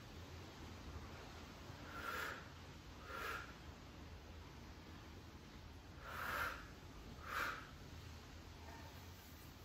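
A person's audible breaths, heavy nasal inhales and exhales, taken during a stretch: four short breaths in two pairs, about a second apart within each pair.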